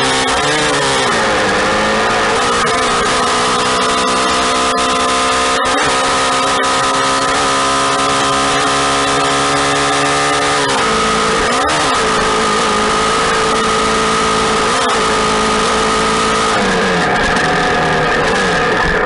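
Motorcycle engine running under way at a steady pitch, dipping briefly several times as the throttle changes and rising to a higher note near the end, over a rush of wind noise.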